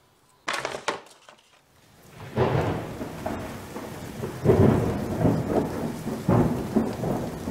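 A thunderstorm: rolling thunder rumbling over steady rain, swelling loudest three times. A short, sharp burst of noise comes about half a second in, before the rumbling builds.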